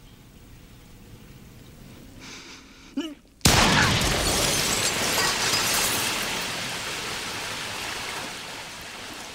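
A sudden loud burst of noise about three and a half seconds in, which dies away slowly over several seconds.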